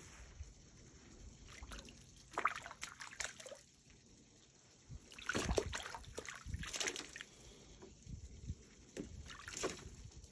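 A bobcat pawing in the water of a plastic kiddie pool after a floating rubber toy: irregular sloshes and splashes in three bouts, about two seconds in, around the middle, and near the end.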